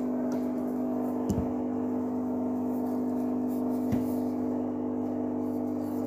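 Whirlpool FL 5065 front-loading washing machine spinning steadily at 600 rpm, a steady hum made of several held tones. Two light knocks come about a second in and about four seconds in.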